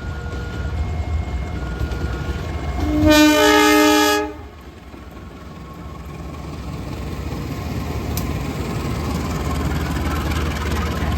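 Train horn sounding one loud blast of about a second, about three seconds in. Before it, short electronic warning tones repeat at different pitches; after it, a low rumble of the train builds.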